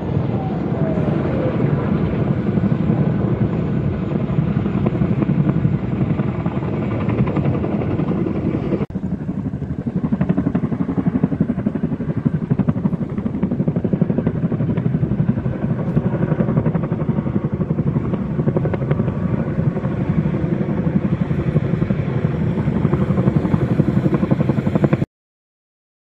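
Firefighting helicopter's rotor beating overhead in a fast, steady chop. The sound drops for an instant about nine seconds in and comes straight back, then cuts off suddenly about a second before the end.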